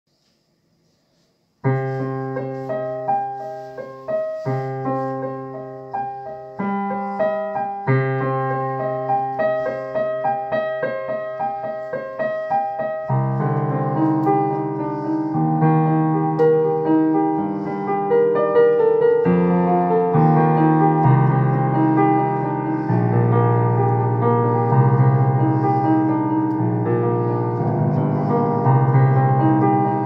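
Digital piano played as a slow improvisation: held chords begin after about a second and a half of near silence, and the playing grows fuller and denser from about halfway through.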